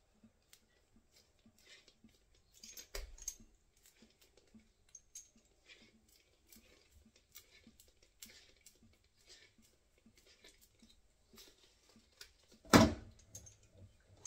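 Faint clicks and rustles of hands working a chrome radiator tail and a Loctite thread-sealing cord dispenser, wrapping the cord round the tail's thread. A sharp knock about three seconds in and a louder knock near the end.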